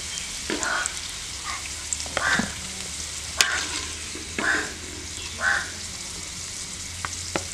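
Potatoes sizzling in hot ghee in an aluminium karahi, with a steady frying hiss. A slotted metal skimmer scrapes and clinks against the pan about once a second as the fried potatoes are lifted out.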